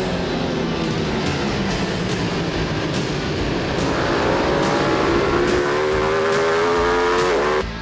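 Racing superbike engine at high revs, its pitch sagging slightly and then rising steadily as it accelerates, cutting off abruptly near the end. Background music with a steady beat plays underneath.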